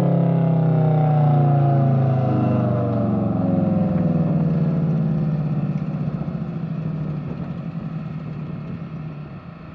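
Full-scale electromechanical air raid siren winding down: several tones sound together and slide steadily lower in pitch while fading over about ten seconds as the rotor slows.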